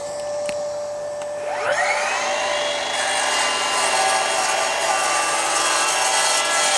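Milwaukee FUEL cordless sliding mitre saw spinning up with a rising whine about one and a half seconds in, over a steady hum. It then cuts through a James Hardie fibre cement plank with a high whine and a loud grinding hiss.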